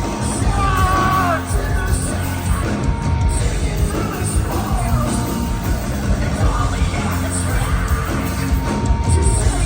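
A post-hardcore band playing live: loud full-band rock music with a singer's voice, sung and yelled, over the top.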